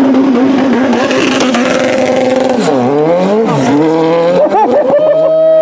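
Open-wheel Formula One-style race car launching from the start line and accelerating hard up the course. The engine revs high, its pitch climbing and then dropping sharply at each gear change.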